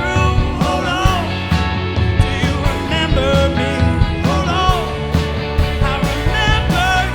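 Live funk- and soul-tinged rock band playing: a bass line and drums under a lead melody that bends and slides in pitch.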